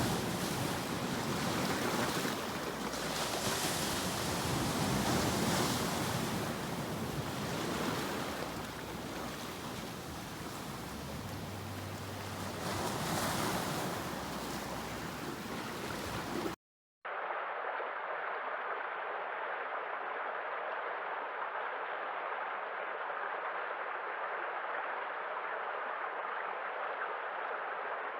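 Sea waves breaking and washing in, rising and falling in swells. A little over halfway through it cuts out abruptly. After a brief gap it gives way to a steady, even hiss with no swells.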